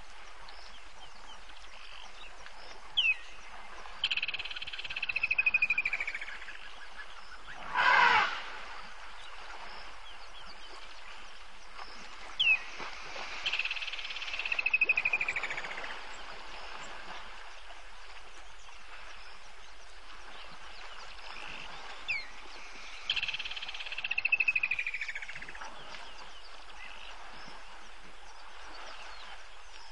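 Waterhole ambience with a wild animal call repeating about every nine seconds: a sharp short chirp followed by a drawn-out call that falls in pitch at its end. About eight seconds in there is one loud, short sound.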